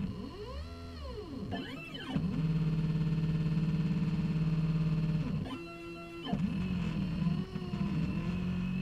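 Stepper motors of a homemade CNC router driving the gantry: a whine whose pitch rises and falls in arches as the motors speed up and slow down, a steady hum for about three seconds in the middle, a brief higher tone about six seconds in, then more short rising-and-falling whines.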